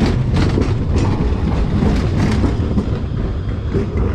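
Tram passing on the tracks: a loud, steady low rumble with repeated sharp wheel clacks over the rails.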